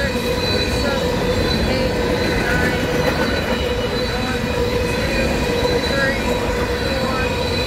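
Empty covered hopper cars of a long grain train rolling past at speed: a steady rumble of steel wheels on rail, with thin high ringing tones held over it.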